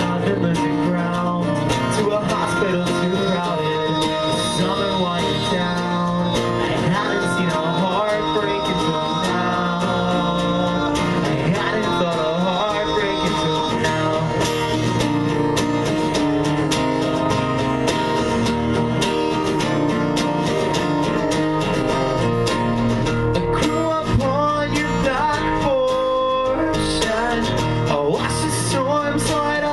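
A band playing a song live: guitar with sung vocals, running without a break.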